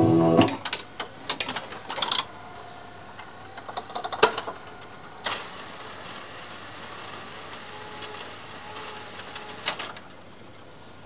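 Music from a Rock-Ola 477 jukebox cuts off about half a second in. The jukebox's record-changing mechanism then runs: a quick cluster of clicks, then a quiet steady motor whir broken by a few sharp clicks as the record carousel turns and a record is handled.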